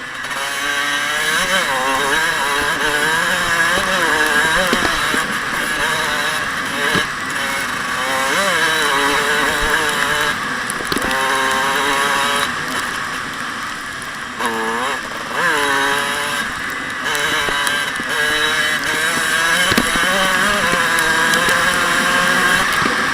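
Dirt bike engine being ridden and revved, its pitch rising and falling again and again as the throttle is opened and closed, with one sharp rev about two thirds of the way through.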